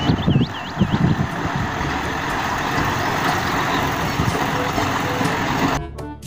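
Heavy three-axle Mercedes-Benz dump truck driving by on a dirt road: its diesel engine rumbling under a steady rush of tyre and wind noise. The sound cuts off suddenly shortly before the end.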